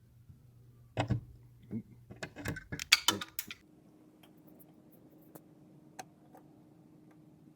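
A soldering gun hums steadily, then goes quiet a couple of seconds in amid a burst of clicks and clattering of handling. A few faint ticks follow.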